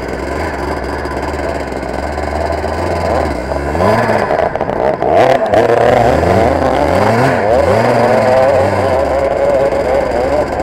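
Racing kart engine heard from on board, running at a steady pitch at first. From about four seconds in it revs up and down several times and grows louder, then settles to a steady note near the end.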